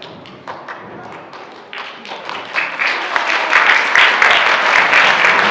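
Audience applause: a few scattered claps that swell over a couple of seconds into full, loud clapping from many hands.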